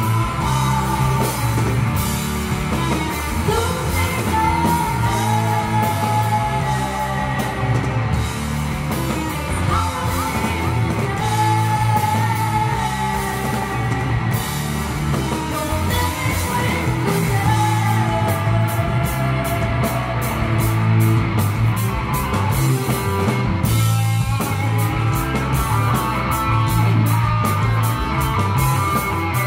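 Rock band playing live: a woman sings long, bending lines over electric guitar, bass, drums and keyboards, with cymbals keeping a steady beat.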